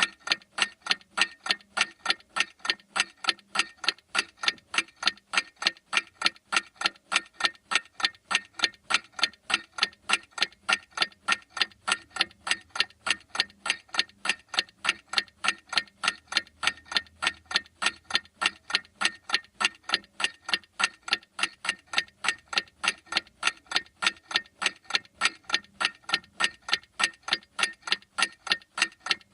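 Clock ticking with a steady, even beat of sharp ticks.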